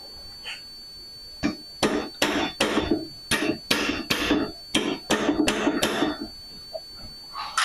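An irregular series of about a dozen sharp knocks, starting about a second and a half in and stopping about six seconds in.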